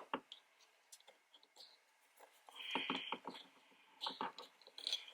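Faint scattered clicks and rustling of plastic wiring connectors and cable being handled and fitted at a car door's window switch, with a brief squeak or hiss about halfway through.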